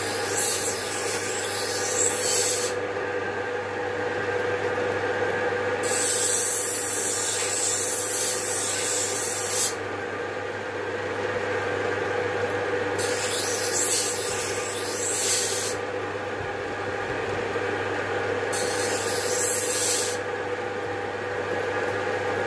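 A motor-driven sharpening wheel (saan) runs with a steady hum. Four times a small steel barber's tool is pressed against it, each time giving a hissing grinding sound that lasts a few seconds.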